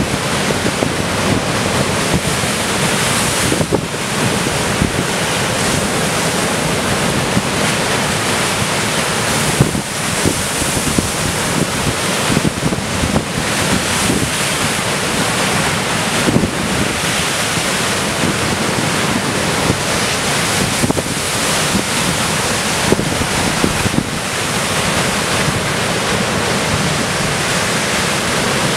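Heavy storm surf: a continuous loud wash of breaking waves crashing into a rocky cove and against a sea wall, with strong wind buffeting the microphone.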